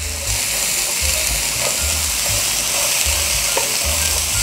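Onions, chickpeas, raisins and pine nuts frying in ghee in a frying pan, sizzling steadily over low heat while a wooden spatula stirs and scrapes through them, with small clicks.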